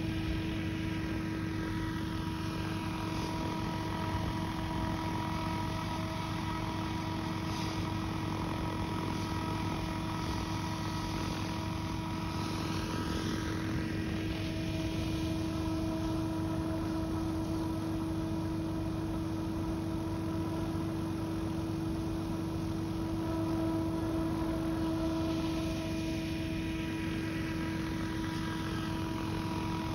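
F3C radio-controlled model helicopter hovering low, its rotor and drive giving a steady hum at one constant pitch.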